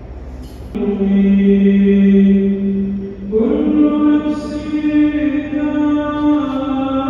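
An imam chanting aloud in Tarawih prayer: one long held note, then, after a brief break about three seconds in, a higher melodic Quran recitation.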